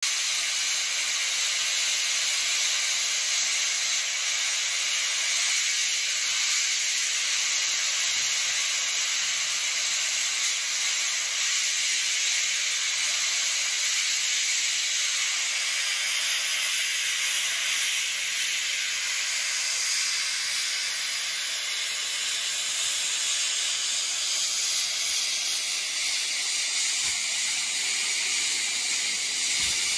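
Steam hissing steadily from NSW 59 class steam locomotive 5917 standing at the platform, with no exhaust beats.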